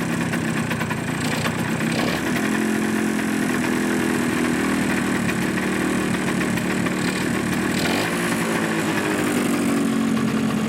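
Suzuki GP100 single-cylinder two-stroke engine running steadily on a test stand.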